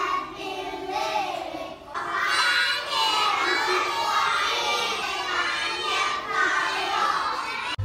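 Several young women singing and shouting together, their voices overlapping, louder and fuller from about two seconds in.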